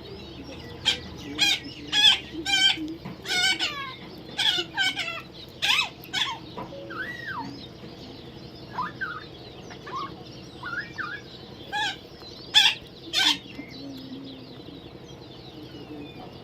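Parrot calling in a series of short, harsh squawks, with a few thinner rising-and-falling whistled notes in the middle and two more loud squawks near the end.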